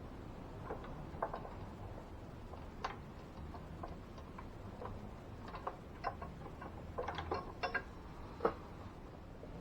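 Irregular small clicks and taps of hands handling small parts, sparse at first and more frequent from about seven seconds in.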